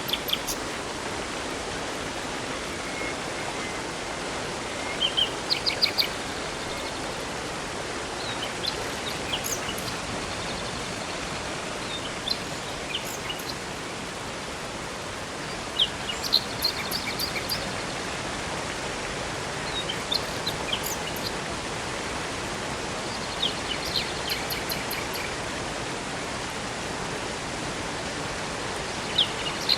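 Steady rush of a river or waterfall, with songbirds chirping and trilling over it in short phrases every few seconds.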